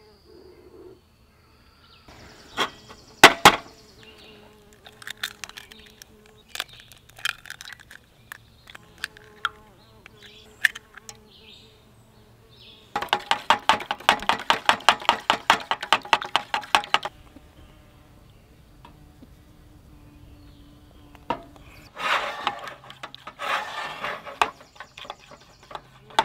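French toast batter being beaten with a spatula in a metal mess tin: a run of quick rhythmic clacks against the tin, about six a second, lasting some four seconds midway, and a shorter run near the end. Before that come scattered taps and a couple of sharp knocks about three seconds in.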